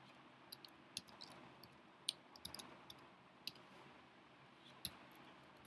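Faint, irregular clicks of a laptop's keys and trackpad, about a dozen scattered taps, with a slightly heavier tap near the end.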